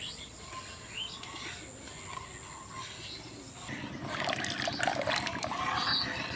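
Steel spoon stirring milk in an aluminium karahi, the milk swishing and the spoon scraping the pan, louder from about four seconds in. Lemon juice is being stirred in to curdle the milk into chhena.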